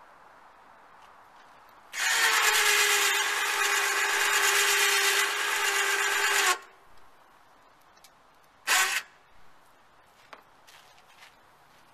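A small electric motor runs steadily at one pitch for about four and a half seconds, stops, then gives a second short burst.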